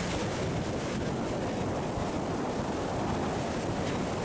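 Sea surf breaking and washing over rocks just below, a steady rush of water, with wind buffeting the microphone.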